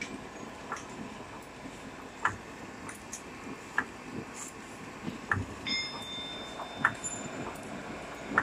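Double-station rotary label die cutting machine running with label stock feeding through its rollers: a steady mechanical noise broken by sharp clicks every second or so. A high steady tone sounds for about a second, starting nearly six seconds in.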